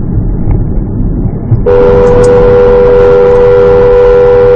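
A car horn held down for about three and a half seconds, starting nearly two seconds in: two steady notes sounding together. Underneath, the loud low rumble of the car driving.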